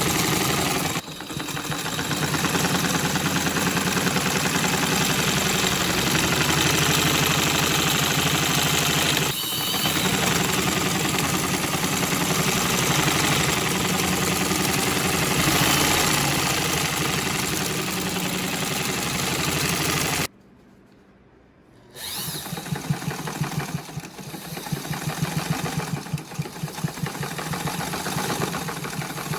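Domestic sewing machine fitted with a free-motion quilting foot, stitching at a fast steady rate as the fabric is moved by hand. It stops briefly about two-thirds of the way through, then starts again and runs less evenly.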